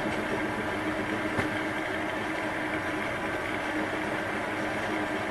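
Chinese metal lathe running steadily with its motor and gearing humming, while a small shank drill in the tailstock is fed into a cast aluminium workpiece. A faint click about a second and a half in.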